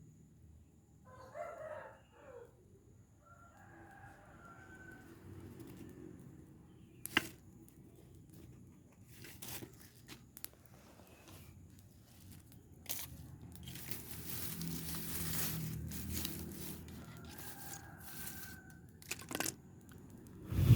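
A rooster crowing faintly, once about four seconds in and again near the end, over the crackle and rustle of a burning rubbish heap, with a few sharp knocks.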